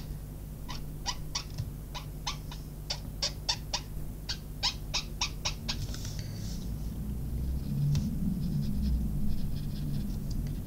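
Light, regular ticks, about three a second, of a fine colouring tip dabbing onto watercolour card to blend the colour, stopping about six seconds in. After that, a low hum with soft rustling as the card is handled.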